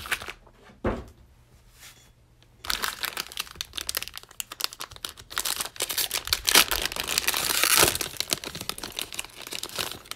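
Plastic cello wrapper of a 2020-21 Donruss basketball card pack crinkling and tearing as it is pulled open by hand. A single knock about a second in, then the crinkling starts at about three seconds and grows loudest near the end.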